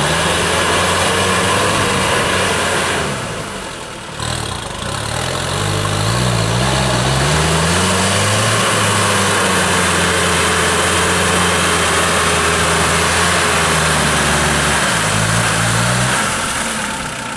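UAZ off-roader's engine running hard under load in deep mud, its revs rising and falling as the driver works the throttle, with a brief easing off about three seconds in. Mud and water churn and splash from the spinning wheels.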